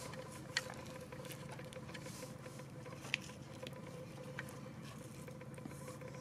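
Faint scraping and a couple of light clicks from a plastic spoon scooping damp, rehydrated potting soil into small foil planter cups, over a steady low hum.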